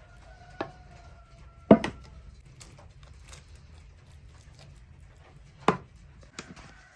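A few sharp knocks and clinks of a metal bowl and spoon against a metal baking tray, the loudest a little under two seconds in, with a faint ring in the first two seconds.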